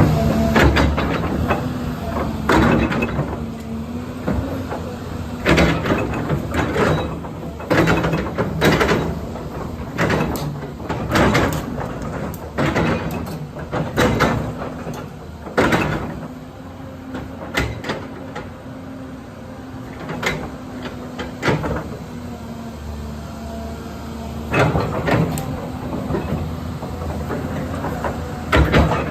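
Caterpillar 329D hydraulic excavator's diesel engine running steadily, with repeated clanks and knocks of metal over it every second or two.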